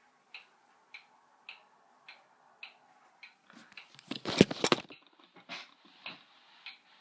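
Vintage eight-day wind-up pendulum wall clock ticking at just under two ticks a second. About four seconds in comes a loud cluster of clicks and rattles, which the owner takes for the gears getting ready to strike the hour, a jiggle-type sound heard just before the hour strike.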